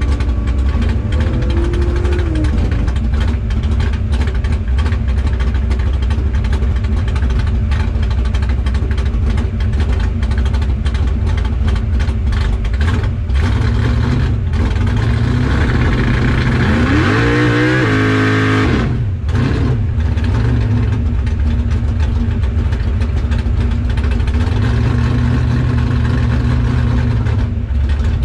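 Chevy S10 drag truck's engine idling, heard inside the cab. About seventeen seconds in it is revved once, rising in pitch, held for a couple of seconds, then dropped back to idle.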